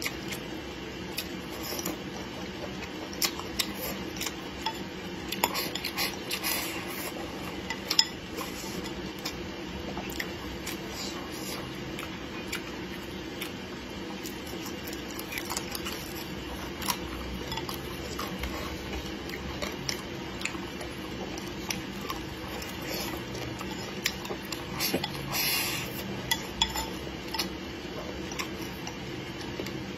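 Wooden chopsticks clicking and scraping against a ceramic bowl as food is stirred and picked up, in scattered sharp taps, with chewing and eating noises between them. A steady low hum runs underneath.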